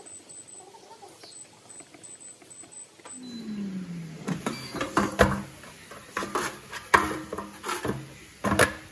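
Nuwave air fryer being handled. A low hum winds down in pitch as the fan stops when the basket is pulled open, followed by several sharp knocks and clatters of the plastic basket and handle.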